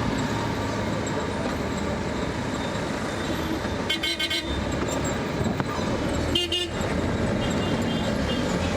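Steady city street traffic with two short car horn toots about two seconds apart past the middle, and fainter toots near the end.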